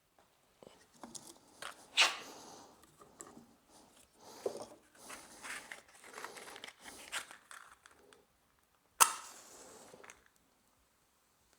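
Rustling, scraping and clinking of things being handled inside an old wood stove's firebox, with two sharp knocks, one about two seconds in and a second near the end.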